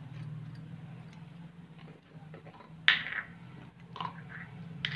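Brief crackling and rustling from a hand adding spices to mashed potato and pea filling, the loudest about three seconds in, over a steady low hum.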